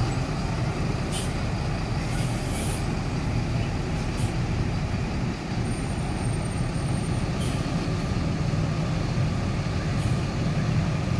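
Mercedes-Benz coach's diesel engine idling with a steady low rumble, broken by several short hisses from the air system.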